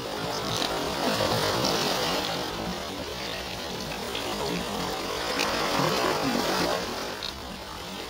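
Small sea waves washing in over rocks and shingle, the surf noise swelling twice and then easing.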